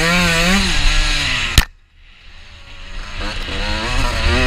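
Honda CR125's two-stroke single-cylinder engine revving up and down under load off-road. It cuts off abruptly with a sharp click about a second and a half in, then builds back up over the next second or so.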